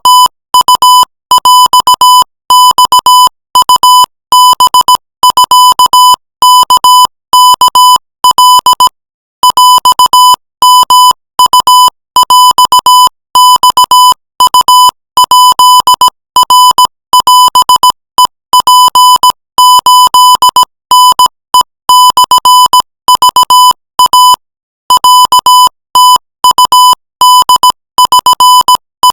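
Morse code sent by a computer-keyed tone at 20 words per minute: a buzzy high beep switched on and off in quick dots and dashes, grouped into letters and words, with a longer pause about nine seconds in and another near twenty-four seconds. The text being sent is Thai-language prose.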